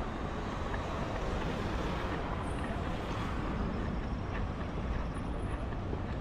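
Steady outdoor city-street noise: a continuous low rumble of traffic mixed with wind, with a few faint ticks.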